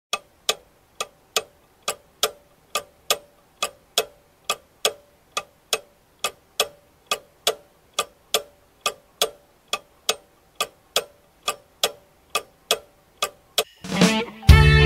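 A clock ticking steadily, about two ticks a second. Near the end a swell rises and rock band music comes in.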